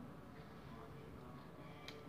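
Faint background music in a quiet room, with one sharp click of a knife against a ceramic plate near the end while grapes are being halved.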